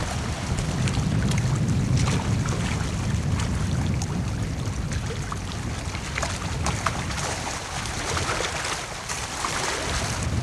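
Wind buffeting the camcorder microphone as a steady low rumble, strongest in the first few seconds, over choppy open water, with scattered faint ticks.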